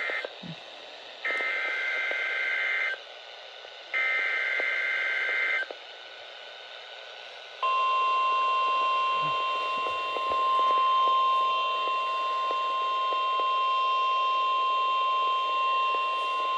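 NOAA Weather Radio Specific Area Message Encoding (SAME) header heard through a weather radio receiver: the end of one harsh, warbling digital data burst, then two more bursts of about 1.7 s each, a second apart, over a faint hiss. About two seconds after the last burst, the steady 1050 Hz weather-radio warning alarm tone starts and holds for about nine seconds.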